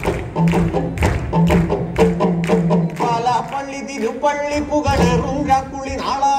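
Folk music for a stage dance: a steady drum beat in the first half, then a sung melody comes in over it about halfway through.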